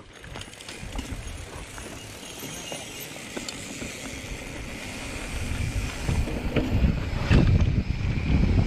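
Mountain bike rolling down a dry dirt trail: tyres on dirt and loose gravel with scattered clicks and rattles. Wind rumble on the microphone grows louder from about five seconds in as the bike picks up speed.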